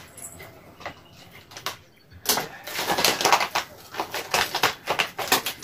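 A small packet crinkling and rustling as it is handled and folded by hand, in quick crackly bursts starting about two seconds in.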